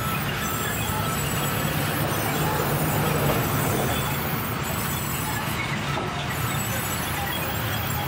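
Sawmill band saw running and cutting through a log as it is fed along the table: a steady mechanical noise with a low hum underneath, swelling slightly about three seconds in.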